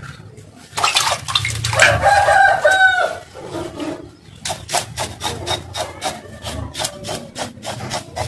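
Knife blade scraping the scales off a small fish on a wooden chopping block, in quick short strokes about three a second in the second half. Earlier, from about one to three seconds in, a rooster crows once.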